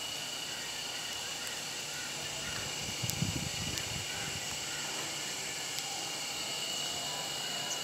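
Steady monsoon rain falling as an even hiss, with a few sharp drip ticks. A brief low rumble comes about three seconds in.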